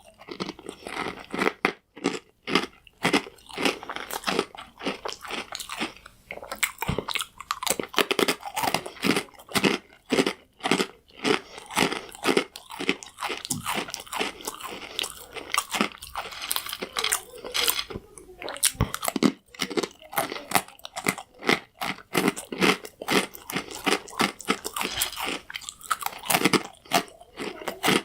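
Close-up crunching and chewing of hard, crunchy croutons: rapid, irregular crunches, several a second, with brief pauses between bites.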